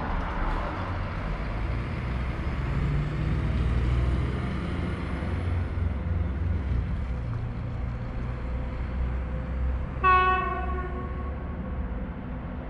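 Train horn sounding one short blast about ten seconds in, over the steady low rumble of the approaching train.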